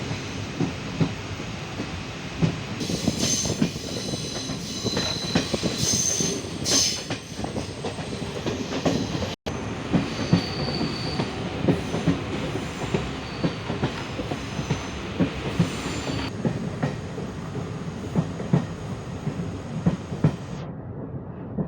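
Train running along the track, with wheels clicking over rail joints and a high wheel squeal that comes and goes.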